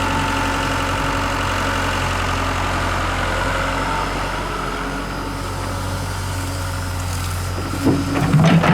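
Hitachi excavator's diesel engine running steadily, with a low hum and a higher whine over it. A few sharp knocks and clatter near the end.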